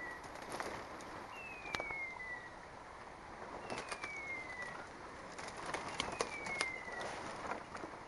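A high whistled note sliding downward, about a second long, repeated three times at even intervals about two and a half seconds apart. Twigs and dry brush crackle and snap underfoot.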